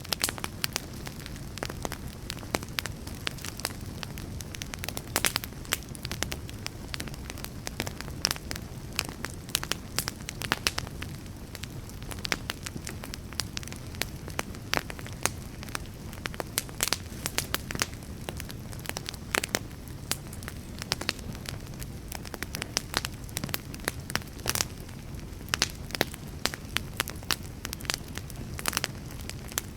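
Wood fire burning, a steady low rush with frequent irregular sharp crackles and pops from the burning logs.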